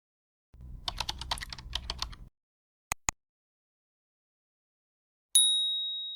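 A quick run of light clicks like typing, then two sharp clicks, then one clear ringing ding, the loudest sound, that fades slowly over about a second and a half.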